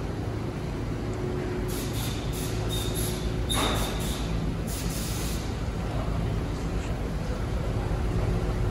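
2020 Ford Transit AWD van running steadily on the lift, a low even hum from the engine and drivetrain. A few sharp metallic clinks and a short hiss come about two to five seconds in.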